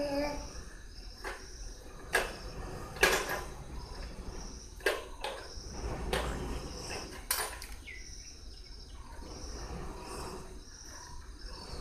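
Scattered knocks and clatters as a toddler handles plastic toys, about six in the first eight seconds, over a steady, evenly repeating high chirping of crickets.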